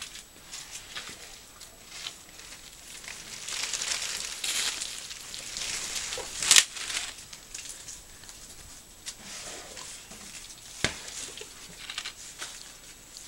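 Dry rustling and crinkling with scattered sharp snaps, from African elephants moving and brushing against dry thatch and vegetation close by. The loudest snap comes about six and a half seconds in, and another near eleven seconds.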